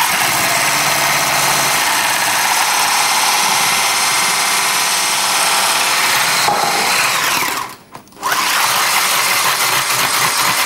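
Handheld electric blender running steadily as it whips meringue with gelatin and cream toward a thick, airy mousse. About eight seconds in it cuts out briefly and then starts again.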